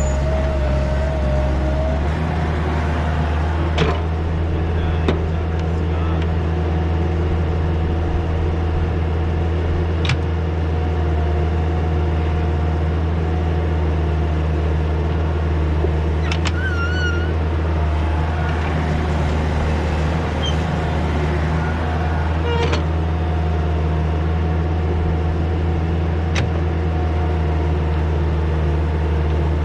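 Diesel engine of a compact earthmoving machine running steadily at a constant speed, with a thin steady whine over it. The engine note shifts about two seconds in, and a few sharp clinks come through.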